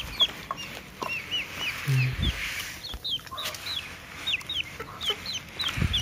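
Chicks peeping: a steady run of short, high, arched peeps, about two a second. Underneath, grain rustles faintly as a hand stirs millet and broken rice in a plastic tub.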